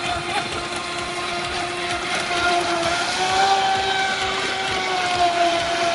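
TFL Hobby Short Blade electric RC speedboat's 36 mm brushless motor (1620 KV, on a 4S battery) running at speed: a steady high whine that rises a little in pitch about three seconds in and then eases back, over a rushing hiss.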